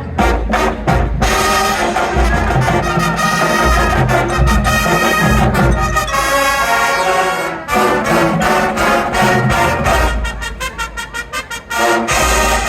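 Marching band playing: brass holding chords over drumline hits, thinning to mostly quick percussion strokes about ten seconds in before the full band comes back in.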